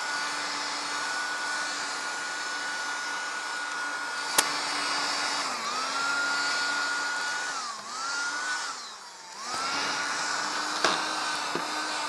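USB mini handheld vacuum cleaner running with a steady whine, sucking up dirt through its nozzle attachment. The motor pitch sags briefly a few times, nearly dies about nine seconds in, then picks up again. A sharp click about four seconds in.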